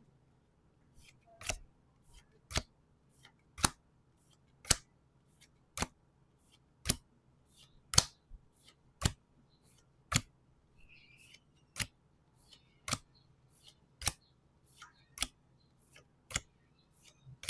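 Japanese Pokémon trading cards flipped and snapped down one at a time: a sharp card snap about once a second, each with a fainter tick of card edges between.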